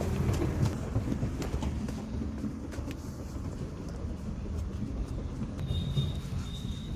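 Diesel engine of heavy machinery running steadily with a low rumble. Near the end a faint high tone pulses in a few short beeps.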